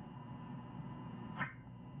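Faint steady hiss and hum from a recorded alert broadcast's receiver between messages, with a few thin steady whines above it and one short click about 1.4 s in.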